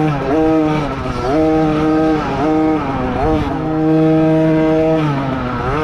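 Small 50cc dirt bike engine running under throttle, its note holding level, then dipping and climbing again about once a second as the rider rolls off and back onto the gas.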